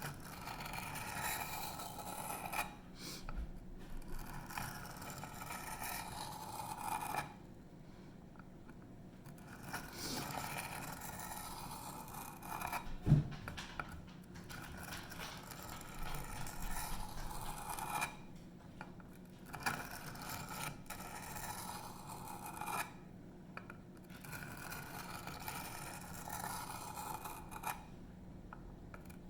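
A 154CM steel knife edge being drawn lightly across a coarse sharpening stone with no added pressure, scraping in runs of repeated strokes broken by short pauses. A single sharp knock comes about thirteen seconds in.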